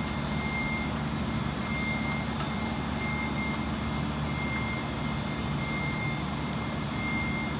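Steady machinery hum with a constant high whine over it, and a few faint clicks.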